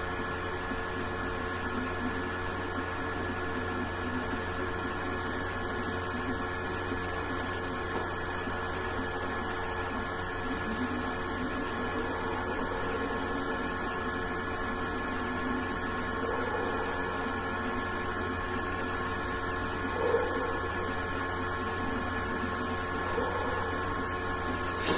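Steady background hum with several constant tones, with a few faint, brief sounds over it in the second half.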